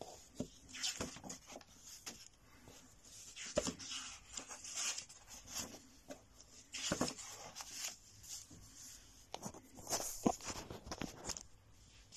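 Paper rustling and handling noise, as of a picture book being opened and its pages turned, with a few sharper soft knocks among the rustles.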